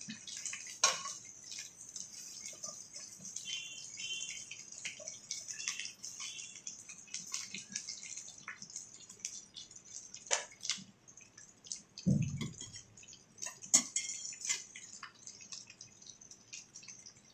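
Stuffed baby brinjals frying in oil in a stainless steel kadai: a steady sizzle with fine crackling. A few sharp clinks of a metal spoon against the pan as they are stirred, and a dull knock about twelve seconds in.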